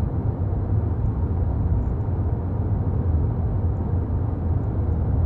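Steady low rumble of a car in motion, heard from inside the cabin: road and engine noise with no distinct events.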